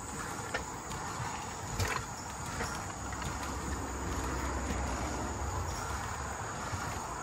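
Steel wheels of a pedal-powered rail bike rolling along old jointed rail: a steady rumble that swells in the middle, with a few sharp clicks and knocks from the track.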